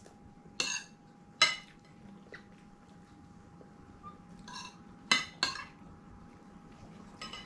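A spoon clinking against a bowl of soup during eating. There are five short, sharp clinks: two in the first second and a half, then three close together from about four and a half seconds. A faint steady tone runs underneath.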